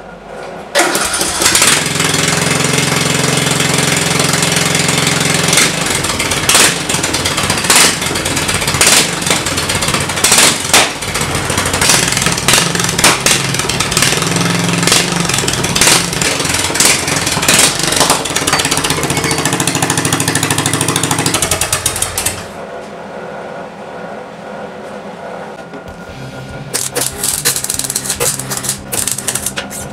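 Electric arc welding on the steel of a homemade exhaust: a dense, steady crackle with a low hum under it. It stops for a few seconds about three-quarters of the way through, then starts again near the end.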